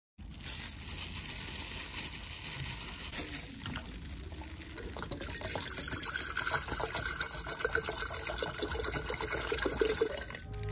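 Dichloromethane solvent pouring from a metal can into a glass jar: a steady trickling splash, its pitch rising over the second half as the jar fills.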